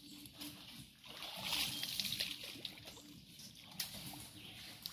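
Splashing and sloshing of someone wading through shallow swamp water, strongest about a second in.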